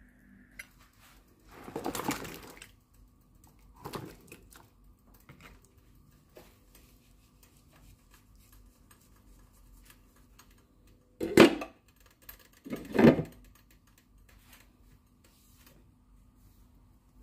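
Kitchen handling noises as cookware and food are moved and set down: a few short noisy bursts, the loudest two about a second and a half apart past the middle, over a faint steady hum.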